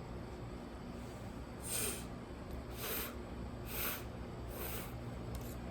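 A man sounding out the voiceless /f/ phoneme, four short breathy 'fff' hisses about a second apart, over a faint steady room hum.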